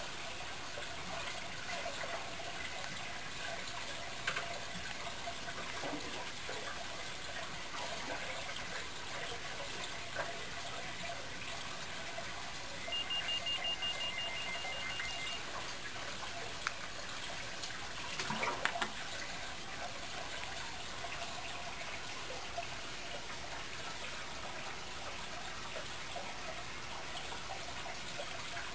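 Steady trickling and bubbling of aquarium water from the tank's filter and aeration. About halfway through, a quick run of high electronic beeps lasts a couple of seconds, and a few sharp knocks follow a few seconds later.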